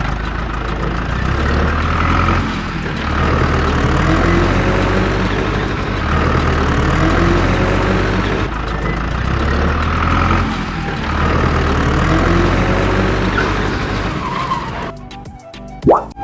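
Background electronic music with a heavy bass line whose notes step in a pattern repeating about every four seconds, ending in a short drop and a rising sweep near the end.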